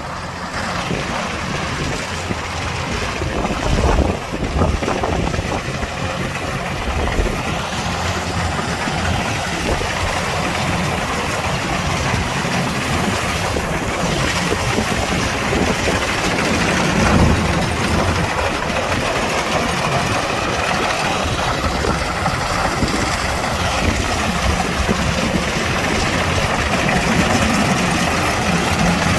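Kubota DC-105X combine harvester running steadily, a constant engine hum under the dense noise of the machine at work.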